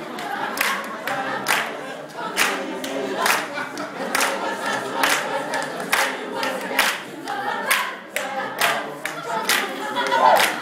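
Mixed choir of men's and women's voices singing a cappella, with sharp percussive beats keeping time about once a second.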